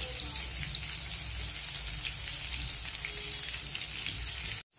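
Besan-battered paneer pakoras deep-frying in hot oil in a kadhai: a steady sizzle with small scattered crackles. The sound cuts out briefly near the end.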